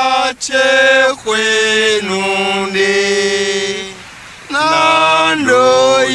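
Unaccompanied single voice chanting in long held notes that step down in pitch, one note held for about two seconds, with a short break about two-thirds of the way through.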